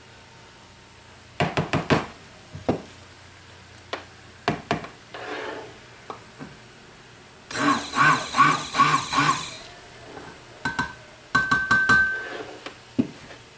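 Silicone spatula and stick blender knocking and scraping against a plastic tub as the blender head is scraped clean of soap batter and set down. There is a quick cluster of knocks early, a run of about six squeaky scrapes around the middle, and more knocks with a short squeak near the end.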